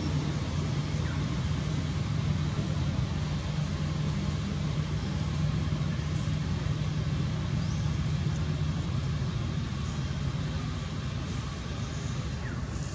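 Steady low hum of a running vehicle engine, with a haze of road-traffic noise.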